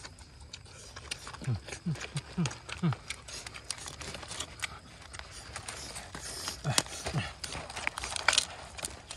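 Open-mouthed chewing and lip-smacking on roasted duck meat, with the carcass being torn apart by hand. A few short low hums that drop in pitch come in a quick run about one and a half seconds in, and twice more near seven seconds.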